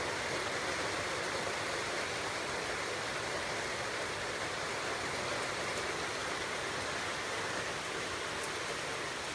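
Steady rushing noise at an even level, without rises or falls.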